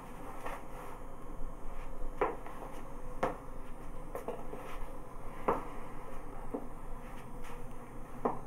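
Quiet room tone with about seven soft, irregular knocks or taps, roughly a second apart.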